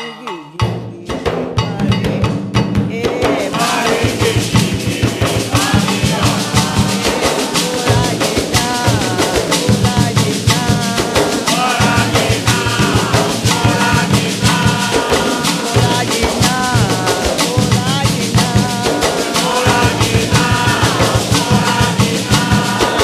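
Afro-Brazilian ritual music of the Nagô and Xambá tradition. Drums and other percussion come in about half a second in and keep up a fast, steady rhythm, with voices singing over them.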